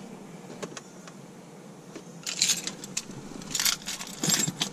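Car keys on a key fob jangling in the hand, in three short bursts during the second half, over a faint steady low hum.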